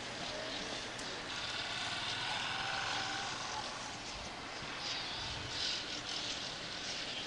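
Faint, steady street ambience with distant traffic under a layer of hiss.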